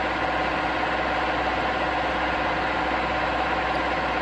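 Stanko 6A82III milling machine's vertical-head spindle running free at 1000 RPM: a steady mechanical hum with several held tones.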